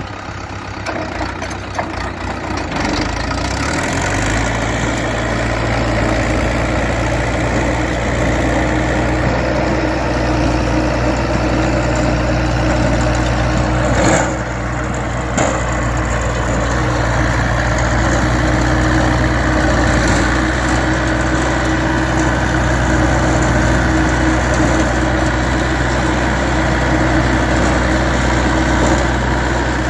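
Luzhong LZ504B 50 hp four-wheel-drive diesel tractor running steadily while a rear rotary tiller churns grass turf into soil. About four seconds in, the engine note grows fuller and louder, then holds steady.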